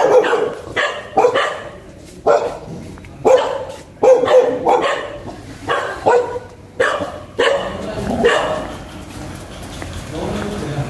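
A dog barking repeatedly, about one to two barks a second, the barks dying away after about eight seconds.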